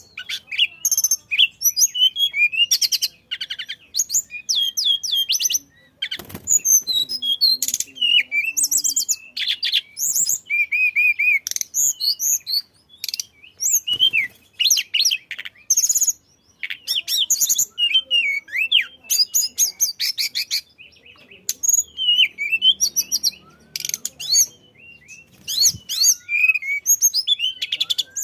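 Tledekan songbird singing a rapid, high-pitched song of quick chirps, sweeping notes and buzzy trills, in bursts broken by short pauses: the lively 'gacor' song used to prompt other caged birds to sing.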